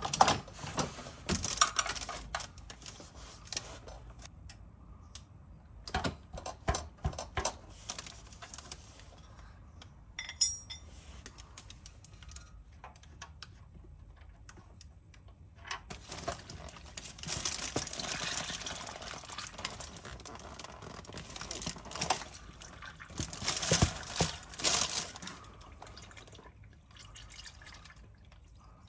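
Hands working at an oil-pan drain plug, with plastic sheeting crinkling in several bursts and scattered clicks of tools and metal. There is a quick run of ticks about ten seconds in.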